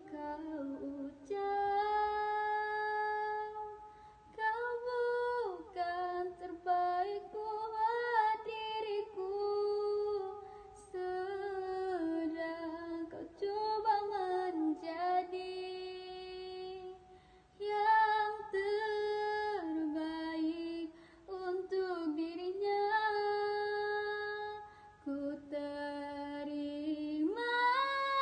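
A young woman singing solo into a handheld microphone, with no audible backing, in long held notes joined by sliding runs and short breaths between phrases. She rises to a louder, higher held note near the end.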